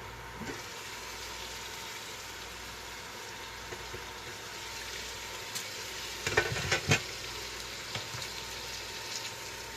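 Bacon sizzling steadily in a frying pan, with a brief cluster of sharp clatters about six to seven seconds in.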